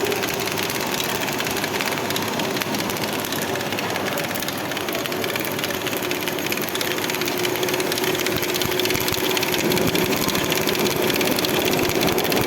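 Thermal metal-spray gun hissing as metal is sprayed onto a shaft turning in a lathe, building up its diameter, with a steady hum underneath. It grows a little louder over the last few seconds.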